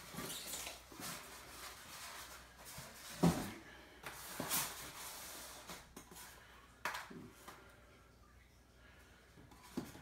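Styrofoam shipping box and packing being handled and opened: light rustling and scuffing with scattered knocks, one sharp knock about a third of the way in and two smaller ones later.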